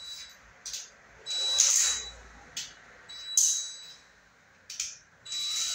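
Cordless drill driving a screw into a ceiling beam in four short bursts, each up to about a second long, with a high whine and hiss.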